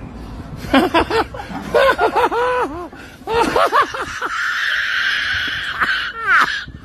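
People laughing in short repeated bursts, with a long high-pitched held squeal of laughter about four seconds in.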